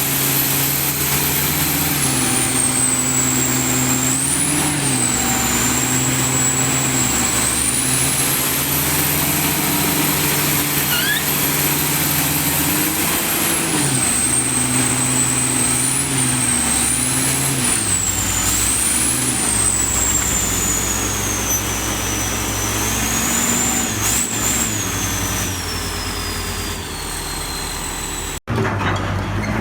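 Komatsu D85ESS bulldozer's diesel engine running under changing load, its speed rising and falling again and again, with a high whine that climbs and drops along with it. The sound cuts out for a moment near the end.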